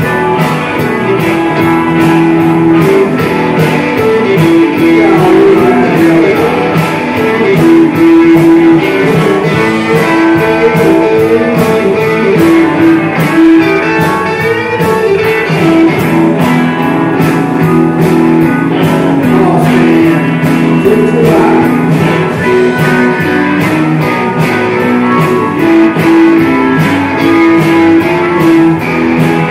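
A live rock band playing an instrumental passage: guitar over bass and drums with a steady beat.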